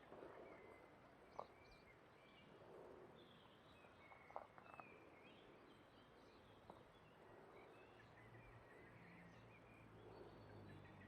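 Faint outdoor ambience: small birds chirping quietly in short scattered calls, with a few sharp clicks and a low hum coming in near the end.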